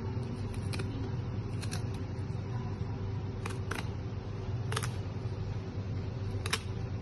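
A long knife cutting along a tuna's rib bones gives off scattered sharp clicks, about seven in all, with a pair close together near the start and another in the middle. A steady low hum runs beneath.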